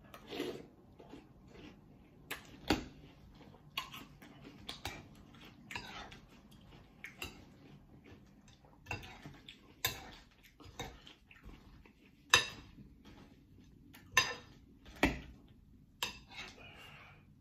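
Metal spoon clinking and scraping against a large glass bowl of cereal in milk, in irregular sharp clinks with a few much louder ones, mixed with the crunching and chewing of Cap'n Crunch Berries between scoops.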